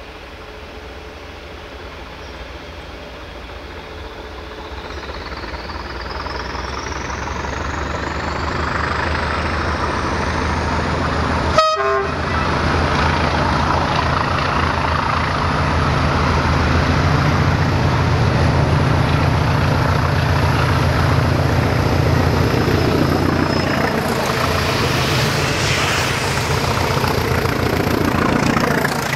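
Diesel locomotive approaching and passing under heavy power, its engine note growing steadily louder, with a thin high whine rising in pitch over the first dozen seconds. A single sharp click comes about twelve seconds in.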